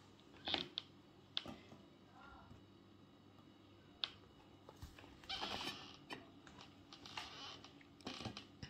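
Metal spoon clinking and scraping against a ceramic bowl and platter as soft cream is scooped and spread: a few sharp clicks, then several short scrapes.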